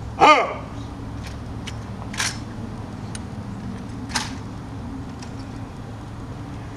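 A drawn-out shouted drill command just at the start, then sharp slaps and clicks as honor guards snap their rifles up to right shoulder arms, with two louder strikes about two and four seconds in.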